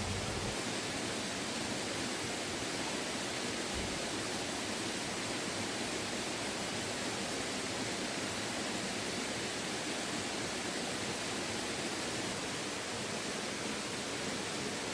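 Steady rushing of river water, an even hiss with no breaks or separate sounds.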